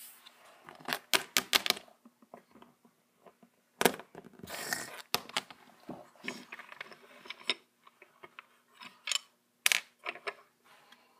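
A small plastic toy figure tapped and set down on a hard tabletop while toy props are handled: irregular sharp clicks and taps, a quick cluster of them early on and single louder knocks later, with a short rustle about halfway through.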